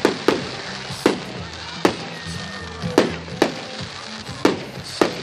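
Aerial fireworks shells bursting in a rapid, uneven string of sharp bangs, about eight of them, with music playing underneath.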